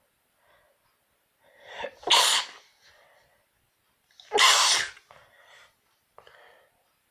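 A person sneezing twice, self-induced. The first sneeze comes about two seconds in after a rising in-breath, and the second about two seconds later. Faint short breaths fall between and after them.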